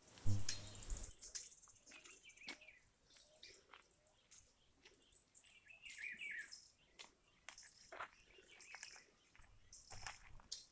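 Small birds chirping and calling in short, scattered high notes, with a brief low rumble about half a second in and a weaker one near the end.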